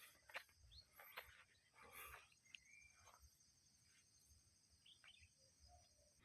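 Near silence outdoors: a faint steady high insect drone, with a few faint short chirps and clicks.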